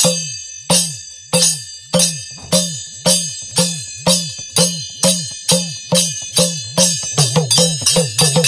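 Music intro of a Bhojpuri folk song: drum strikes, each sliding down in pitch and topped with a metallic jingle, speeding up steadily and doubling in pace about seven seconds in.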